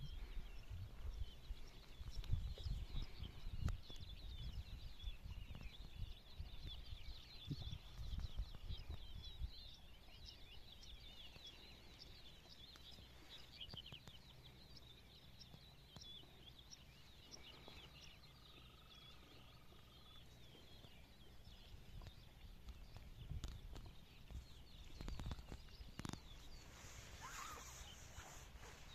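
A faint outdoor chorus of many rapid, high-pitched animal chirps, thinning out after about fifteen seconds, with a low wind rumble on the microphone during the first ten seconds.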